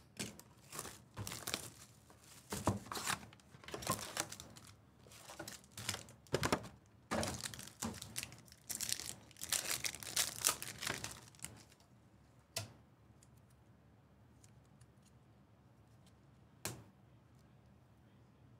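Trading-card packs of 2018 Panini Prizm football being torn open, their wrappers tearing and crinkling in a run of rustling bursts for about twelve seconds. Two single sharp clicks follow.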